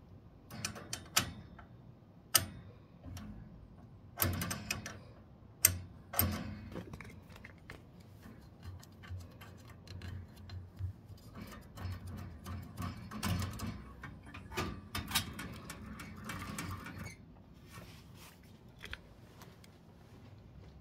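Sharp metal clicks and knocks with rustling as a thermocouple and gas valve are handled on an old Burnham gas boiler, during a thermocouple replacement for a pilot that won't stay lit. The loudest clicks come in the first few seconds, followed by busier, softer clicking.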